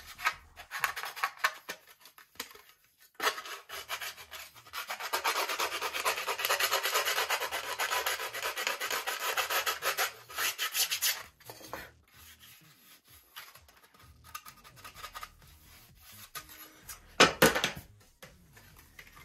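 Balsa cowl block being hand-sanded with an aluminium bar sander: quick rasping strokes at first, then about eight seconds of steady back-and-forth rubbing, then a few scattered strokes. Near the end a single sharp knock as the sanding bar is set down on the bench.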